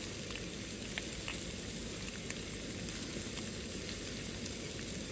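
Chipolata sausages and bacon sizzling in a frying pan on a camping stove: a steady hiss with scattered pops and crackles.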